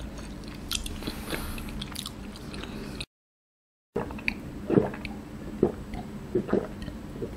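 Close-miked mouth sounds: faint chewing and lip clicks, then, after a brief dead gap, gulping swallows while drinking from a glass jar, a series of soft gulps about a second apart.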